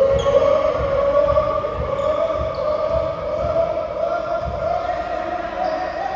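Dull thumps of a ball and feet on an indoor court floor, under a loud held tone that slowly rises in pitch.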